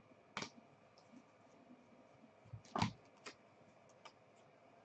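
Trading cards being handled on a table: a few short, soft clicks and scrapes, the loudest a little under three seconds in.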